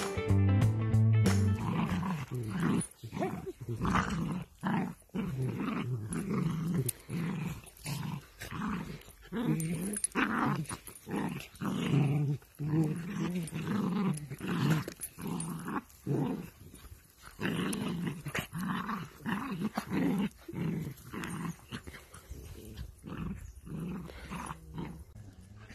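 Dachshunds play-growling in short, irregular bursts, one or two a second, while they wrestle.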